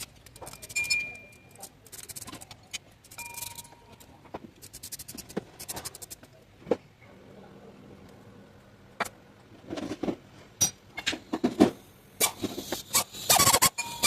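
Metal hand tools and bolts clinking and knocking against the engine while a replacement water pump is fitted: scattered sharp clicks, with a quick run of clicks near the end.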